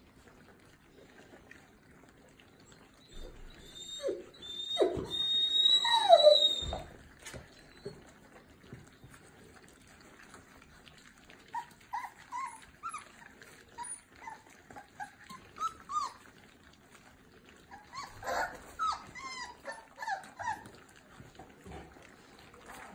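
Old English Mastiff puppies whimpering and squeaking while eating from a shared pan: a burst of high squeals and a falling whine about four to seven seconds in, then scattered short squeaks.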